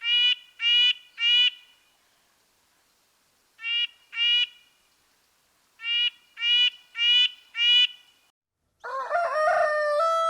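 A bird calling in short, clear notes in groups (three, then two, then four), followed near the end by a rooster starting a long crow.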